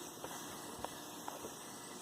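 Mitsubishi Triton engine running quietly with a few faint, irregular ticks, on a truck with a misfire whose noise is being traced in the engine bay.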